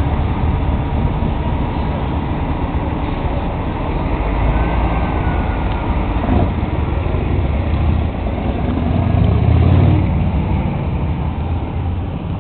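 Car engine rumble and road noise in slow-moving traffic, swelling louder for a couple of seconds about nine seconds in.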